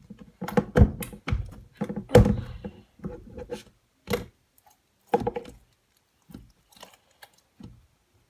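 Soft, sticky slime being squeezed and worked, giving an irregular run of wet squelches, clicks and pops. They are dense in the first four seconds and come more sparsely after that.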